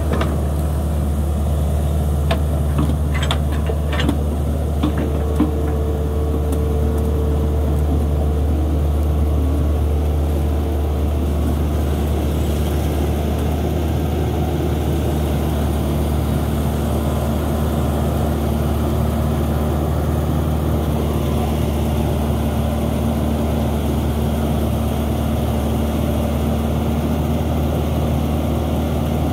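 Hitachi 210 excavator's diesel engine running steadily at working speed while it loads a dump truck, with a few sharp knocks about three to five seconds in. A faint steady tone runs along with the engine and drops lower in pitch about twelve seconds in.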